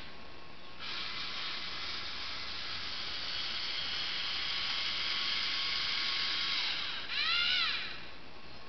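Lego Mindstorms NXT servo motors and their gear trains whining as the robot moves along the bar. A steady whine starts about a second in and runs until about seven seconds. A short, louder burst follows whose pitch rises and falls as the motors speed up and slow down.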